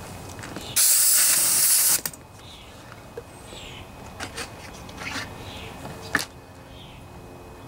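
A burst of spray hissing for about a second, clearing out the freshly tapped muffler bolt hole in the aluminum cylinder head, followed by a few light clicks and taps.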